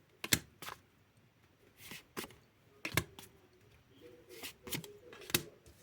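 Tarot cards being handled and laid out: a few separate sharp snaps and taps of card against card and table, with quiet gaps between.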